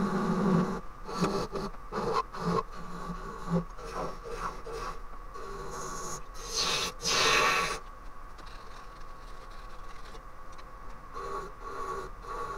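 Wood lathe running with a steady hum while a turning tool makes short, intermittent scraping cuts into spinning green Japanese ornamental cherry, with one longer, louder cut about seven seconds in.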